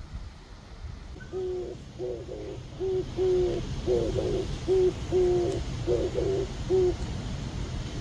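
Oriental turtle dove cooing: a rhythmic series of low hooting notes, some short and some drawn out, starting about a second in and stopping about a second before the end, over a low steady rumble.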